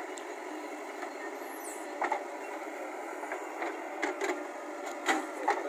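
JCB backhoe loader's diesel engine running steadily as the backhoe arm digs and swings a bucket of soil, with a few sharp knocks about two, four and five seconds in.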